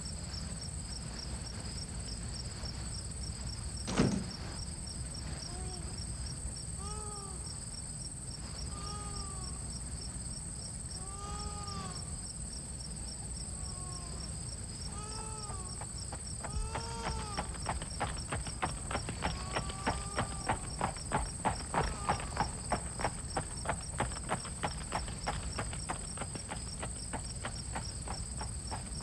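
Insects chirping throughout: a fast-pulsing high trill with a steady, even higher tone above it. There is a single thump about four seconds in, short rising-and-falling pitched calls every couple of seconds through the first half, and a regular knocking about twice a second in the second half.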